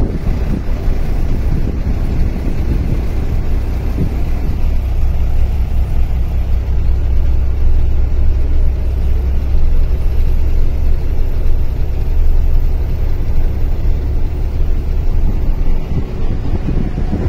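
Steady low rumble of road and wind noise from a moving vehicle, heard from inside it.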